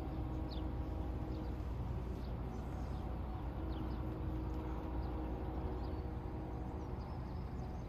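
Outdoor background ambience: a steady low rumble with faint, short bird chirps scattered through it.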